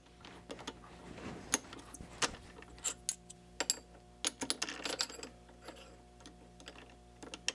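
Irregular light metal clicks and taps from handling parts in a mini lathe's three-jaw chuck. The end mill is swapped out and a brass hex part is set in the jaws. A faint steady hum runs underneath.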